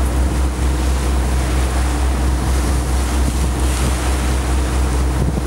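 Boat engine running steadily as a low drone, heard on board, with wind buffeting the microphone and the wash of water along the hull.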